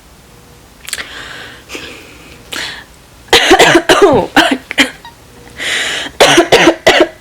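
A person coughing in loud, repeated fits, with a few breathy exhales before them.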